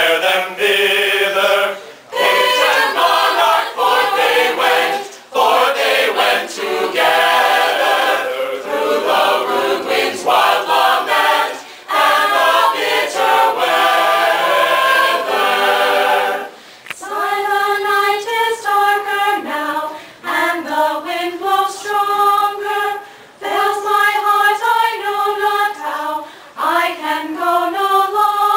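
Mixed-voice a cappella choir singing. About halfway through, the singing changes to long held chords in short phrases, with brief pauses between them.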